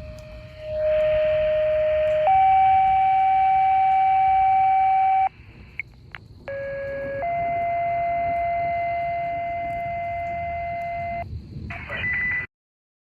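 A series of steady electronic tones, each held for a few seconds and stepping abruptly up or down in pitch, with a short break about five seconds in, then a sudden cut to silence near the end.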